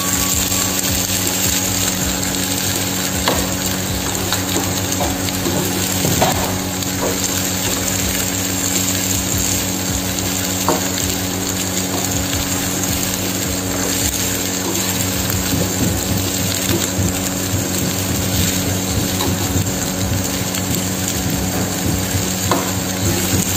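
Chicken and vegetable pieces sizzling in a nonstick frying pan while a metal spoon stirs and scrapes through them, with scattered light clicks of the spoon against the pan over a steady low hum.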